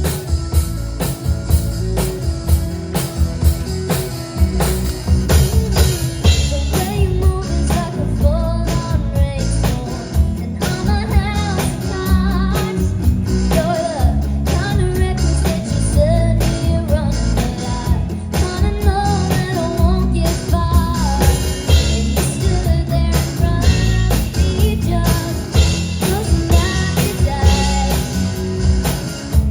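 Live pop-rock band playing, with drum kit, bass and electric guitars, and a lead vocal singing over them from about six seconds in.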